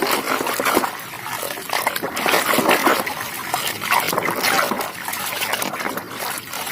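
Water splashing and trickling as a muddy toy vehicle is washed by hand, with frequent small clicks and knocks of plastic being handled and rubbed.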